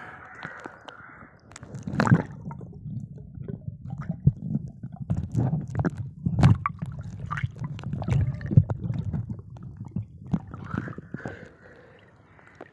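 Water sloshing and gurgling around a camera dipping under the surface, heard muffled from underwater, with a run of sharp splashes and knocks. The loudest comes about two seconds in; it quietens near the end.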